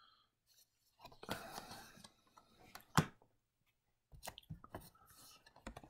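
Tarot cards being handled on a felt-covered table: a rustle of cards about a second in, one sharp card snap about three seconds in, then a run of light clicks and taps as the deck is handled.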